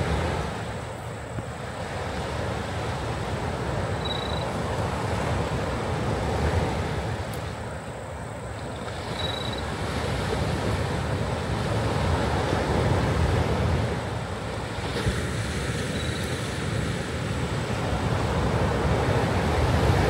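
Sea waves breaking and washing ashore, a continuous surf noise that swells and eases every several seconds.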